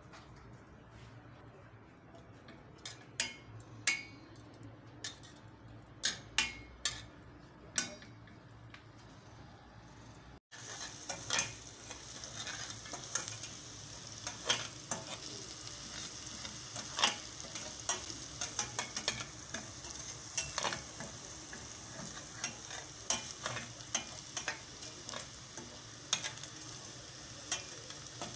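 Chopped onions and garlic frying in oil in a stainless steel pan, with a metal spatula clicking and scraping against the pan as they are stirred. About ten seconds in the sound drops out briefly, then the sizzling is louder and steadier, with frequent clicks from the stirring.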